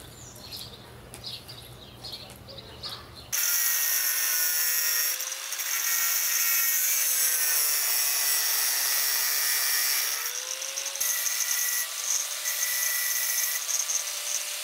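Handheld angle grinder running, cutting a small stainless steel tube and grinding its cut ends smooth. It starts abruptly about three seconds in, and its motor note sags and recovers as the disc bites. Before it starts there are only faint bird chirps and light handling clicks.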